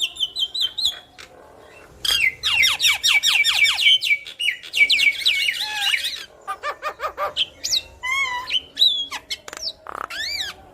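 Javan myna (jalak kebo) in full song: short high whistles, a pause of about a second, then a fast run of downward-sweeping notes followed by a varied mix of squawks, clicks and rising-and-falling whistles.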